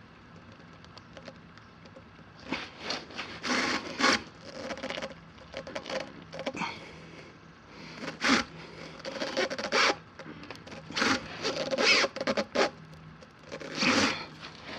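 Tire plug insertion tool being forced and worked into a tire puncture with a sticky rubber plug: a run of irregular scraping and rubbing strokes.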